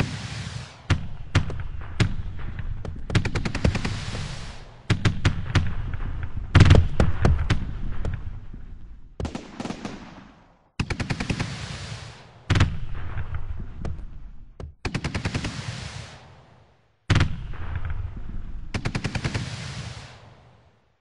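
Simulated fireworks from Finale Fireworks show-design software: about ten volleys of rapid, sharp pops and crackling reports, each volley starting suddenly and fading away, with brief gaps between some of them.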